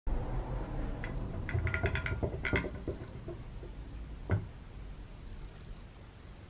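Vintage Woden Quiksaw drill saw attachment handled, its metal guard and rusty steel blade giving a run of ringing metallic clinks and rattles, then one sharp knock about four seconds in as it is set down on a wooden bench.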